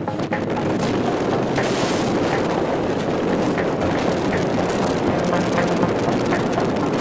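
Wind and road noise of a car driving at speed: a loud, even rush.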